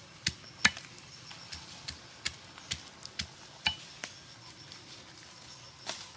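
Long machete-like knife chopping garlic cloves on a flat rock: a series of sharp, irregular taps as the blade strikes the stone, with a pause before a last tap near the end.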